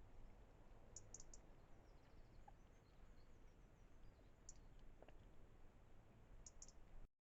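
Near silence, broken by a few faint, very short high-pitched clicks that come singly or in quick groups of two or three. The sound cuts out abruptly near the end.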